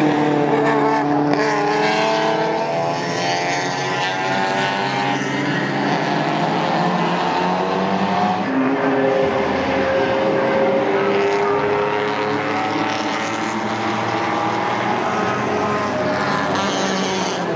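Several classic race cars' petrol engines running hard on a circuit, passing one after another. The engine notes rise and fall in pitch as the cars accelerate, lift and go by, sometimes two at once.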